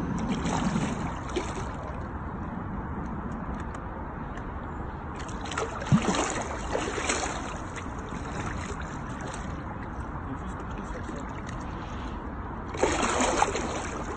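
Water splashing and sloshing as a hooked wels catfish thrashes at the surface beside the boat, in louder bouts about a second in, around six seconds in with a sharp knock, and again near the end.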